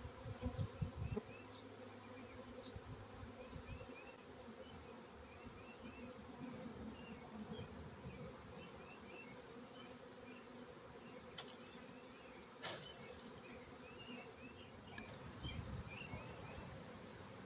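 Honeybee swarm buzzing steadily, with many bees in the air as clumps of the swarm are shaken off the logs into a hive box. A few brief knocks come late on.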